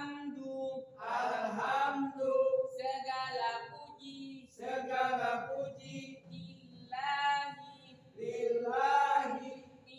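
Men's voices reciting Qur'anic verses aloud in a chanted style, in about six short phrases with brief pauses between them: a loud-voiced Qur'an memorisation drill.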